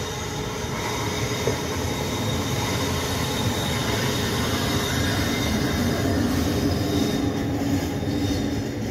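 A red diesel shunting locomotive rolling past on the yard tracks, its engine running under a steady rail rumble, with a thin high wheel squeal. The engine tone grows stronger in the second half as the locomotive passes closest.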